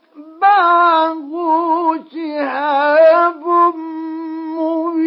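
A male Quran reciter chanting in the melodic mujawwad style, with ornamented, wavering notes. After a brief pause near the start and another about two seconds in, he holds a long sustained note.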